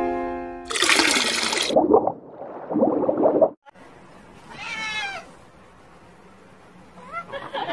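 A grey shorthaired domestic cat gives one falling meow about five seconds in, begging for food. Before it, in the first half, comes a loud rushing noise of about a second, then softer rushing.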